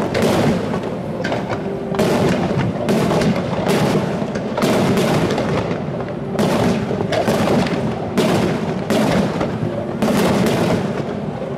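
Aerial firework shells bursting one after another, about a dozen loud bangs roughly a second apart, with a steady low rumble between them.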